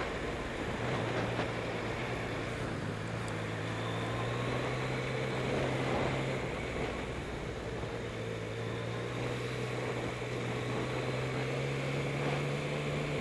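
Yamaha MT-09's three-cylinder engine running at low revs as the motorcycle rolls slowly, its note dipping a little past halfway and rising again near the end, under a steady hiss of wind and road noise on the helmet-camera microphone.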